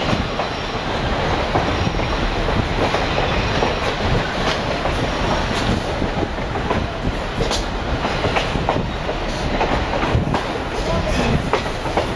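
Passenger train rolling along the track: steady running noise with sharp clicks of the wheels over the rails now and then.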